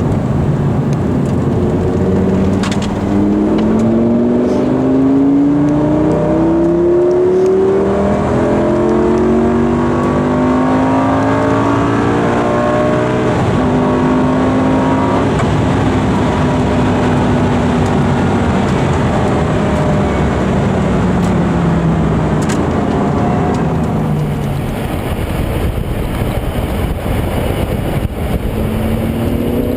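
Lamborghini Gallardo's V10 engine accelerating hard, its pitch climbing in several steps through upshifts. It then holds a steady note before falling away as the car eases off, and starts climbing again near the end.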